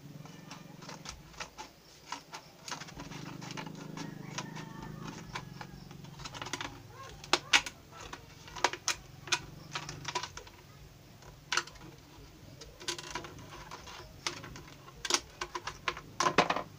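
Scissors cutting through a clear plastic bottle: irregular sharp snips and crackles of the thin plastic, louder and more frequent in the second half.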